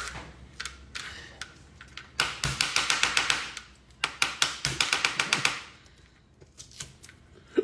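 Kitchen knife chopping onion on a cutting board in two quick runs of sharp strokes, about nine a second, with a single thump near the end.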